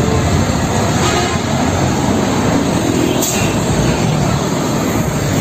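Steady engine rumble and road noise of a loaded Isuzu car-carrier truck driving past close by in traffic.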